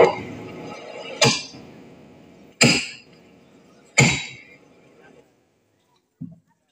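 The tail of loud recorded music fades out, followed by three sharp hits about a second and a half apart, each ringing out briefly, and then near silence.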